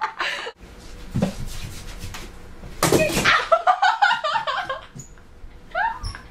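A girl laughing and squealing in wavering bursts, with a dull thump about a second in.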